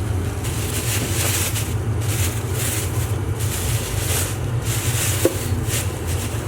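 Packaging being handled and rustled in irregular bursts while a box is unpacked, over a steady low hum.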